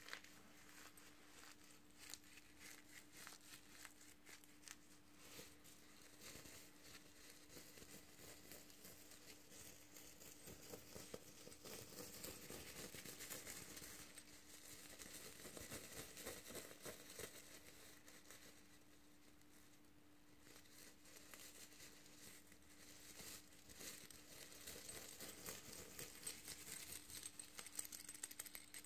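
Fingernails scratching and brushing the flip sequins of a reversible sequin pouch, a fine crinkly rustle of many tiny clicks. It is busiest in the middle and near the end, with a short lull about two-thirds through, over a faint steady hum.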